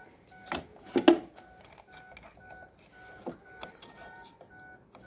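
A car's electronic warning chime beeping steadily, a little over twice a second, as with the Ford C-Max's lights left on, over sharp plastic clicks of a bulb being pushed into the tail-lamp bulb holder, the loudest about a second in.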